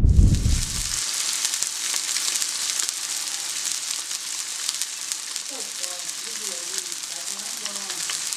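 A steady sizzling hiss with many fine crackles, starting abruptly. Faint voices come in underneath from about halfway through.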